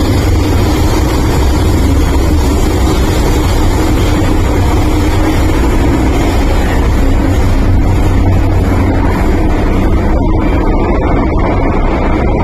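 MTR Island Line M-Train heard from inside the car while running through the tunnel: a loud, steady rumble of wheels on rail and running gear, with a hiss in the highs that thins near the end.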